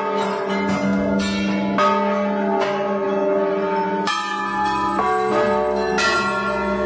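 Hanging brass temple bells rung by hand one after another, a new strike about every second. Each strike rings on with several tones, overlapping the next.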